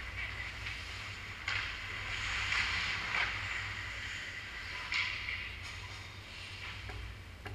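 Ice hockey skate blades scraping and carving on rink ice, with sudden louder scrapes about a second and a half in, through the next couple of seconds, and again about five seconds in, over a steady low hum.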